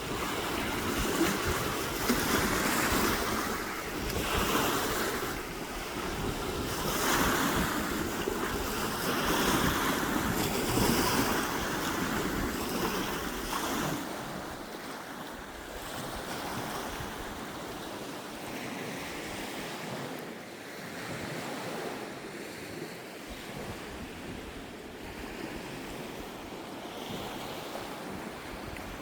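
Sea waves washing in, swelling and falling about every two seconds, with wind on the microphone. The wash drops quieter and steadier about halfway through.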